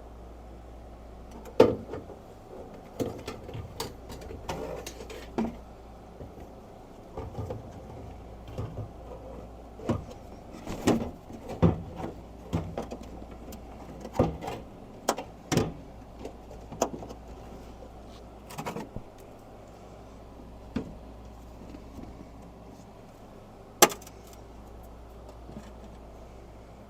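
Scattered metallic clicks, clinks and knocks of parts and hand tools as a new fuel sending unit is fitted into a Mazda Miata's fuel tank, over a steady low hum. The sharpest clicks come about a second and a half in and near the end.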